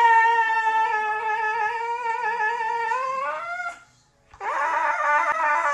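Husky howling: one long, steady howl that rises in pitch near its end and breaks off about four seconds in, then a second, wavering howl starts half a second later.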